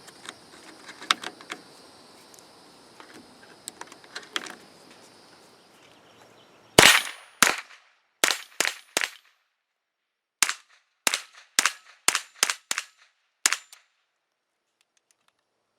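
A few faint clicks, then about a dozen sharp .22 LR rifle shots fired in quick semi-automatic strings from an AR-15 fitted with a Chiappa M4-22 rimfire conversion upper.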